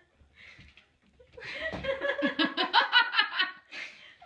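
A person laughing: a quiet start, then from about a second and a half in a loud, rapid run of laughter that breaks off near the end.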